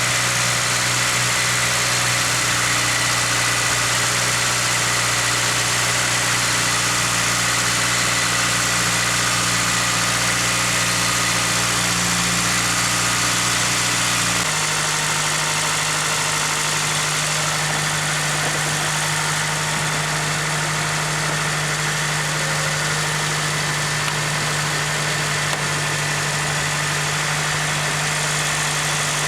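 Toyota Celica GT-S 2ZZ-GE four-cylinder engine idling steadily with a thin high steady whine from the accessory belt drive, freshly fitted with a quieter replacement alternator; the owner says another bearing in there is still noisy. About halfway through, the low engine note steps to a different steady pitch.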